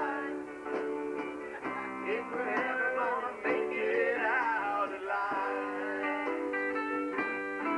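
A rock band playing live, with guitar over drums.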